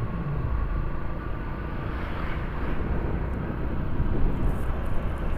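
Motorcycle under way: steady wind and road rumble with the engine running underneath.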